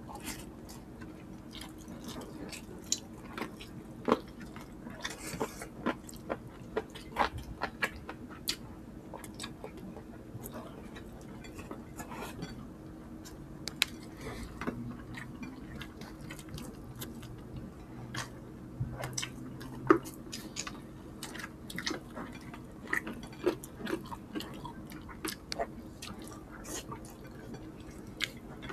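Close-miked eating by two people: wet chewing, lip smacks and small mouth clicks as they eat creamy chicken pastel and rice by hand. The sounds come irregularly, several a second, over a faint steady hum.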